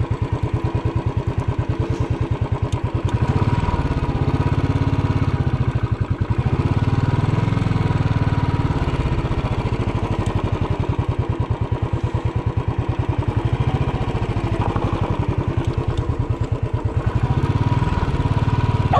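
Royal Enfield Classic 350 UCE's single-cylinder engine running at idle with a regular, even thump, swelling a little in level about four seconds in and again near the end.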